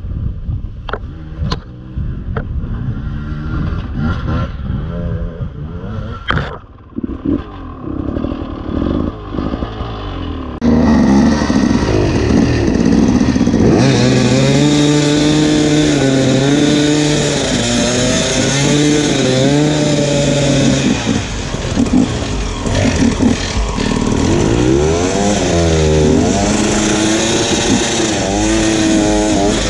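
Enduro dirt bike engine: at first it runs low under scattered knocks and clatter, then about ten seconds in it gets suddenly much louder and revs up and down over and over under hard throttle.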